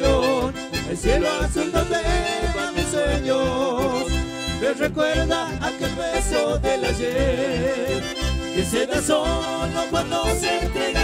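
Live band music: a wavering accordion melody over a steady, regular bass beat.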